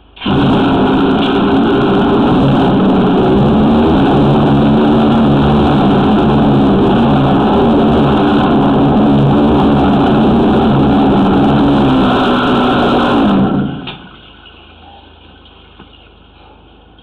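High-pressure sewer jetter running with its root-cutter nozzle blasting water through the pipe: a steady engine-and-pump note over rushing water, cutting in suddenly and stopping about thirteen and a half seconds in. The jet is cutting tree roots back and flushing them out of the sewer line.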